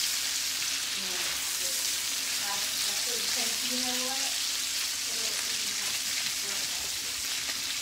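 Diced bacon frying in a skillet with a steady sizzle, stirred and turned with a spatula.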